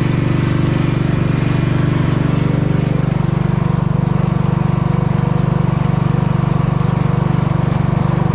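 An engine running steadily at a constant speed, a deep even hum with a faint steady whine above it.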